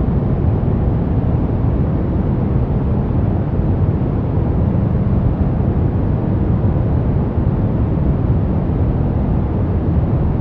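Brown noise: steady, deep rumbling noise with most of its energy in the low end and little treble, unchanging throughout.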